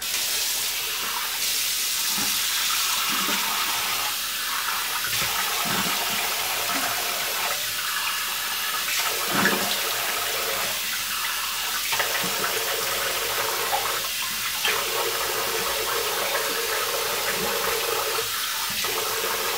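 Water running steadily from a bathroom sink tap, with irregular splashes as cleanser is rinsed off a face.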